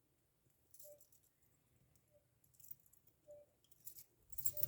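Faint scattered metallic clicks and light rattling of steel handcuffs being worked with a thin spring-steel shim. The clicks grow louder and more frequent near the end.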